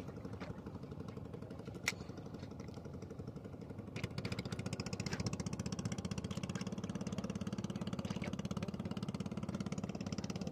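A small boat engine running at a fast, even beat, getting louder about four seconds in. A single sharp click near two seconds.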